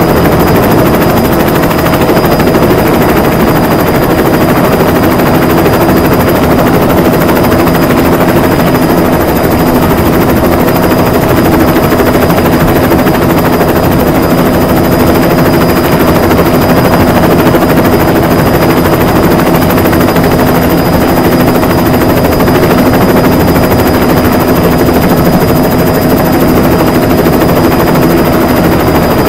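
Diesel passenger train running along the line: a loud, steady drone with a few held tones over rumble and clatter.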